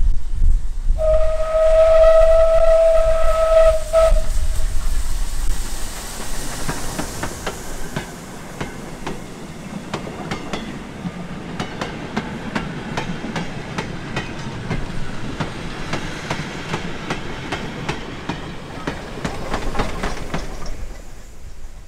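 Steam locomotive whistle blown once for about three seconds, a single steady note, over the low rumble of the passing engine. Then goods wagons roll by with a rumble and a fast, irregular run of clicks from the wheels over rail joints, dying away near the end.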